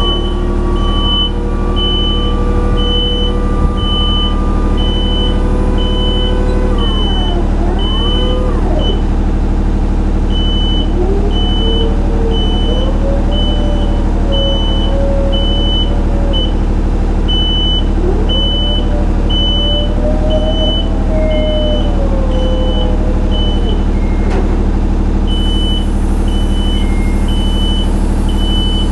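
Genie GS-2646 battery-electric scissor lift raising its platform: the hydraulic pump motor hums steadily while the motion alarm beeps about one and a half times a second. A whining tone rises and falls over the hum.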